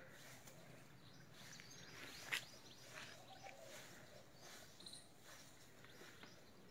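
Near silence: faint outdoor background noise with a few faint chirps, and a single sharp click a little over two seconds in.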